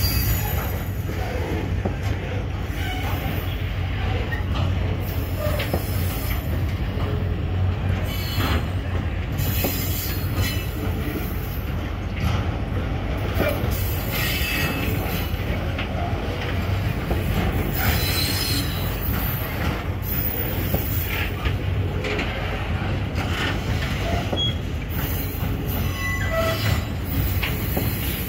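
Freight train of phosphate hopper wagons rolling past close by: a steady low rumble of steel wheels on rail, with short high-pitched wheel squeals coming and going and scattered clicks of wheels over rail joints.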